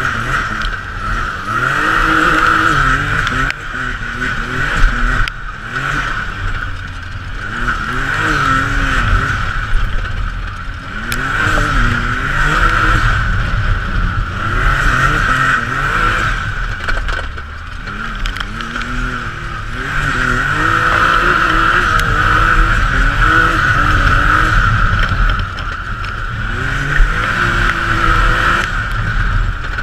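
Can-Am Maverick X3 side-by-side's three-cylinder engine pulling hard and easing off over and over, its pitch rising and falling every few seconds. A high whine swells with each pull over a steady low rumble.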